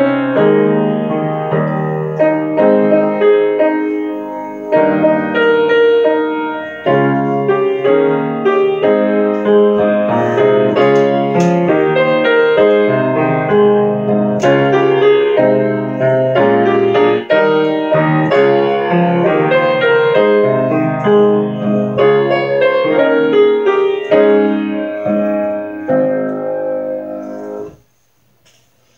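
Grand piano played solo: a run of full chords, one changing to the next about every second. The music stops about a second before the end as the last chord is released.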